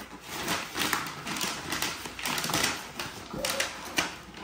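Irregular rustling and scraping of gift wrap and a cardboard toy box being handled, with a sharp knock about four seconds in.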